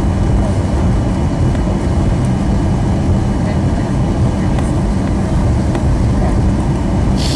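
Steady low rumble of a Southwest Boeing 737 taxiing, its jet engines at low taxi power, heard from inside the passenger cabin. A short click sounds near the end.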